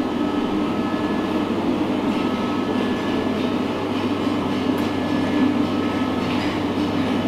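Steady mechanical drone with a constant low hum, running without a break.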